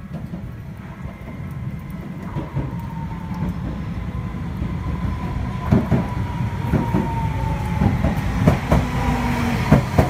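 Tokyu Setagaya Line tram approaching and passing, growing steadily louder. A whine falls slightly in pitch over several seconds, and from about halfway its wheels clack over the rail joints and the crossing.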